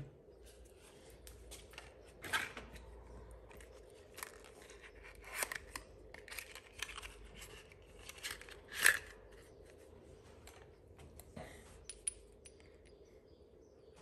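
Small cardboard spark plug boxes being opened and new spark plugs slid out and handled: scattered rustles, scrapes and light clicks, the sharpest about two, five and nine seconds in.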